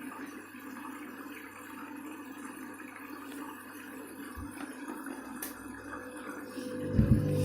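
Candy washing machine taking in water: a steady rush of water with a low hum. Near the end the drum starts turning, with a few loud thumps.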